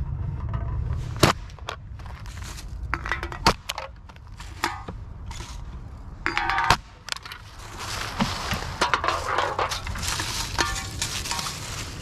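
Empty aluminium beverage cans being gripped with a reach grabber and crushed against asphalt: several sharp clanks and short bursts of ringing, crinkling metal. A longer crackling rustle of dry leaves follows about eight seconds in.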